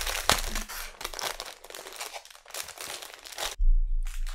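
Clear plastic packaging bag crinkling and rustling as a fabric pouch is pulled out of it. Near the end the crinkling stops and a dull low thump follows.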